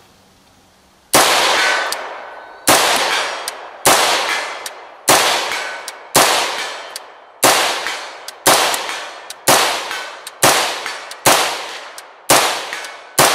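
BCI Dagger AR-15 rifle chambered in 300 AAC Blackout fired semi-automatically, about a dozen shots at roughly one a second, each trailing off before the next.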